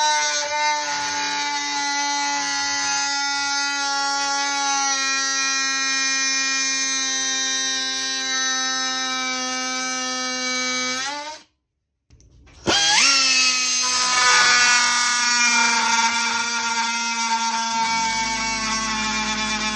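Oscillating multi-tool running with a high, steady whine whose pitch sinks slowly as it works. It stops about eleven seconds in, then starts again with a rising whine and runs on. Near the end a low hum joins in.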